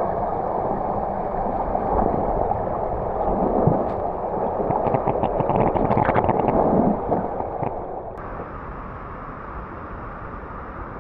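Creek water rushing over rocks, with a few small splashes; it drops to a softer rush about eight seconds in.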